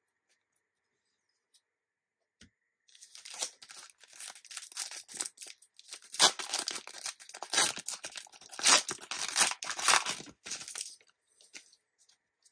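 A trading card booster pack being torn open, its wrapper tearing and crinkling. The run of noise starts about three seconds in, lasts about eight seconds and is loudest in its second half.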